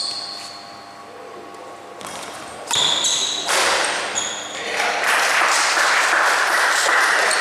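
Sharp racket-and-shuttlecock hits and short high squeaks during a badminton rally, followed from about three and a half seconds in by a loud, steady rush of noise that lasts to the end.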